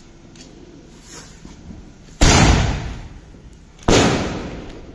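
A ground-lit colour shot firework firing: two loud bangs about a second and a half apart, each fading away over about a second.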